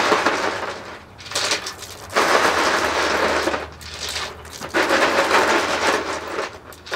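Ice cubes poured and clattering into a plastic tub to make an ice-water bath, in three rattling bursts with short pauses between.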